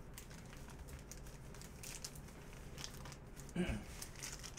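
Foil wrappers of Panini Prizm basketball retail card packs crinkling quietly as hands handle them.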